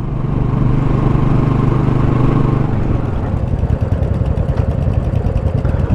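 Royal Enfield Classic single-cylinder motorcycle engine running steadily under way, then, about three seconds in, settling to idle with an even pulsing beat.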